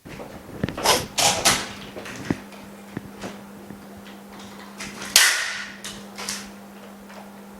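A machine's steady low hum switching on, with scrapes, clicks and knocks of parts being handled over it, the loudest a sharp scraping hiss about five seconds in.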